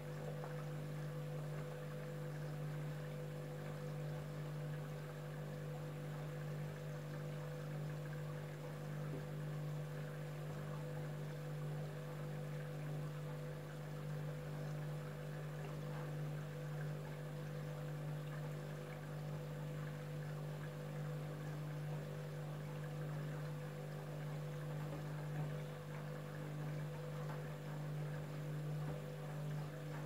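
Candy front-loading washing machine running mid-cycle, its drum turning laundry in sudsy water, with a steady hum and water swishing.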